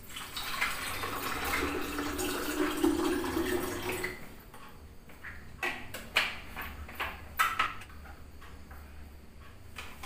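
A steady rushing noise for about the first four seconds. Then several sharp knocks of a knife cutting soft dough against a plastic cutting board.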